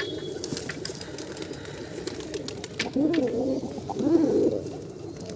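Domestic pigeons cooing, two coos about three and four seconds in, with scattered light clicks.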